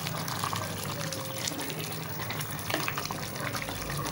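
A ladle stirring basmati rice through its cooking liquid in a pot, the watery mixture sloshing, with a few sharp clicks of the ladle against the pot near the end.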